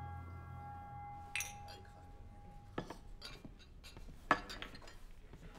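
A held musical drone ends a little under three seconds in. Sharp clinks of glasses and dishes follow over low pub room noise, the loudest about four seconds in.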